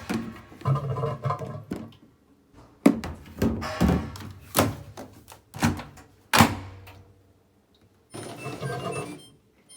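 A series of about six sharp thunks and knocks, irregularly spaced, in the middle of the stretch. A pitched sound with several steady tones comes briefly before them and again near the end.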